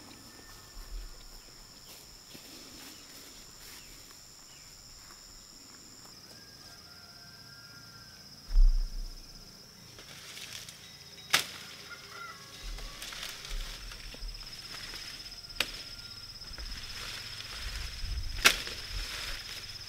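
Leafy plants rustling as they are pulled and gathered by hand, with three sharp snaps of stems being cut or broken in the second half, over a steady high insect whine. A low thump about eight and a half seconds in is the loudest sound.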